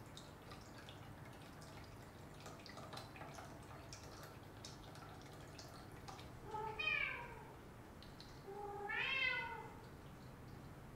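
British Shorthair cat meowing twice, two drawn-out calls about a second long each; the first falls in pitch, the second rises and then falls.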